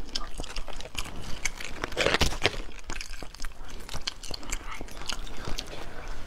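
Close-up eating sounds of crab: crab shell cracking and crunching between teeth and fingers, with chewing and sucking. The loudest crunching comes about two seconds in.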